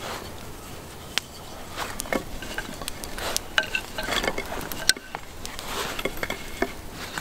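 Wooden parts of a handmade frame saw clicking and knocking together as they are taken from a cloth roll and handled, with cloth rustling between the sharp clicks.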